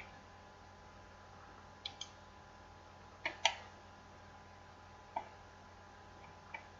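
Computer mouse buttons clicking while selecting vertices: single clicks and quick double clicks a second or two apart. A faint steady hum lies underneath.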